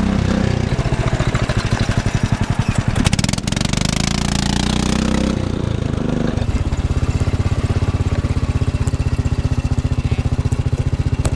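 Predator 420 cc single-cylinder four-stroke engine in a golf cart, running under load as the cart drives, with a loud exhaust. The owner finds it sputtering, as if it is not getting good fuel.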